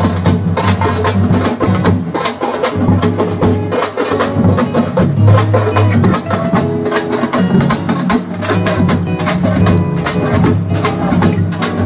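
Large double-headed barrel drums beaten in fast, dense strokes, mixed with other music that holds sustained low notes.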